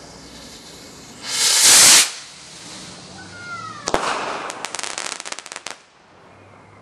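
Firework rocket display: a loud rushing whoosh about a second in, then a short falling whistle and a sharp bang as the rocket bursts about four seconds in, followed by nearly two seconds of rapid crackling pops.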